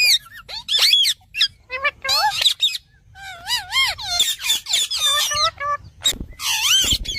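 A parrot chattering and squawking in a run of short warbling calls that waver up and down in pitch. There are a couple of low thumps near the end.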